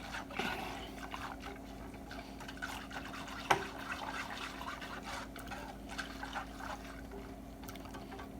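Wire whisk stirring warm milk into chocolate pudding mixture in a saucepan: irregular liquid sloshing and light scrapes and clicks of the whisk against the pot, with one sharper knock about three and a half seconds in. A steady faint hum runs underneath.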